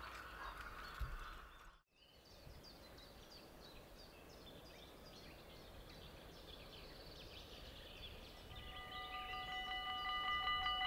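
Faint outdoor ambience with small birds chirping. About nine seconds in, the railway crossing's warning bell starts ringing in a fast, even, high-pitched repeat, the signal that a train is coming and the barriers are about to lower.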